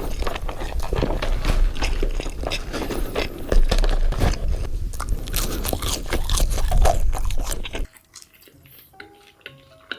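Burger being bitten and chewed close to the microphone, a dense run of crunching clicks. It stops abruptly about eight seconds in, leaving faint tones and light clicks.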